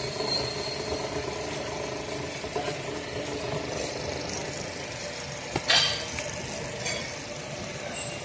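Electric hydraulic power pack running with a steady hum as its motor and pump feed oil to a set of hydraulic jacks. A sharp click and a short rattle come a little before six seconds in, with a smaller one about a second later.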